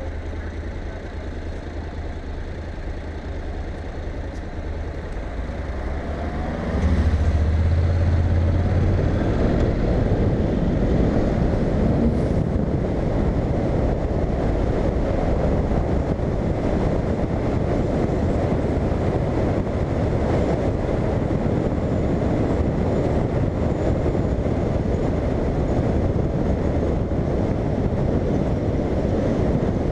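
Honda Integra's parallel-twin engine idling at a standstill, then pulling away about seven seconds in. After that it runs steadily at speed, mixed with dense wind and road noise on the bike-mounted microphone.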